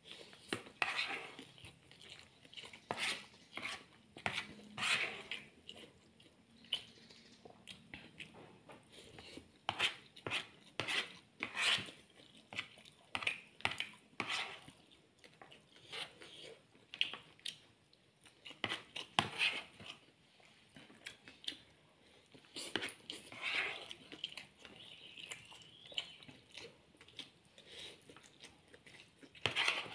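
Close-up mouth sounds of eating fried instant noodles: slurping, chewing and lip smacks, in irregular sharp clicks. A fork clinks and scrapes on the plate as he gathers more noodles.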